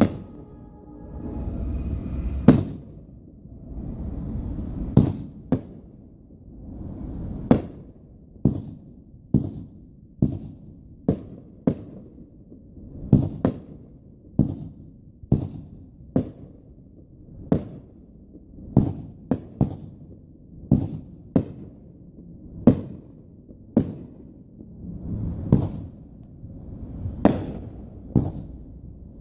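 Aerial fireworks going off in a steady barrage: short hissing launches followed by sharp bursts, about one a second, with a low rumble between them.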